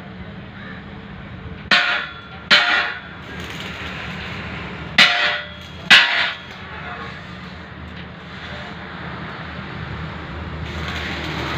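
Four ringing metallic clangs of steel being struck, in two pairs about a second apart, over a steady low hum.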